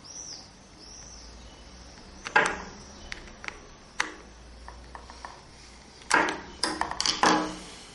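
Screwdriver driving the screw that closes a red plastic tape-binder head, with handling clicks and knocks of the tool and plastic part: one knock about two seconds in, a few light clicks, then several louder knocks near the end.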